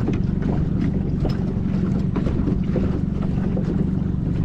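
Small boat's outboard motor running steadily at trolling speed, a continuous low drone with a rapid even pulse, with wind buffeting the microphone and water washing along the hull.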